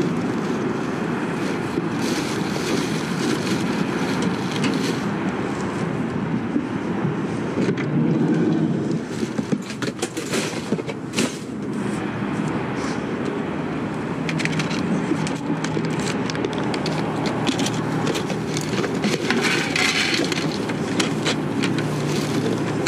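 Steady road noise and low engine rumble of a moving vehicle, with scattered rattles and knocks throughout.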